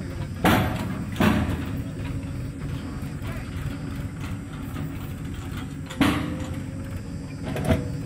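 Diesel engines of a Mahindra tractor and a JCB 3DX backhoe loader running steadily, with four sudden thuds as the backhoe's bucket drops mud into the tractor's trolley: two close together near the start and two more near the end.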